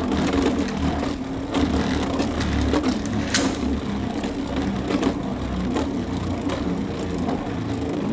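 Two Beyblade X spinning tops whirring as they spin and grind around a plastic stadium. Now and then a sharp click or knock sounds as they touch or hit the stadium rail.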